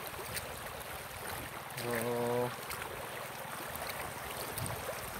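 Shallow river running over rocks, a steady rush of water. A short, steady-pitched vocal sound about two seconds in.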